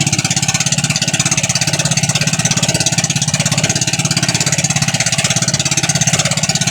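Motorized outrigger boat (pambot) engine running steadily with a fast, even chugging beat.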